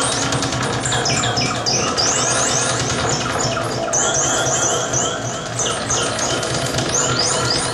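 Live experimental noise music: a dense layer of short, high rising chirps repeating several times a second over a steady low hum, starting to fade at the very end.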